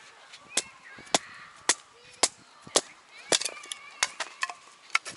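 Chopping: a blade striking a board in sharp, even knocks about two a second, with faint high calls between the strokes.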